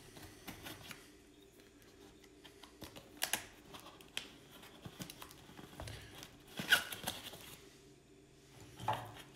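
Utility knife slicing the packing tape on a cardboard box, with scattered scrapes and rustles of cardboard being handled. A few sharper rasps stand out, the loudest about two-thirds of the way through.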